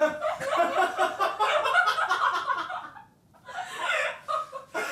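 A man laughing in rapid, rhythmic, cackling pulses, breaking off briefly about three seconds in and then laughing again.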